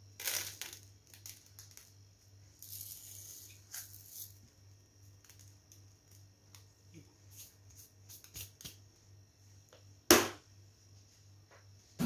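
Small handling sounds from work around a cake plate: scattered light clicks and taps, a short rustle about three seconds in, and one sharp knock about ten seconds in, over a faint steady low hum.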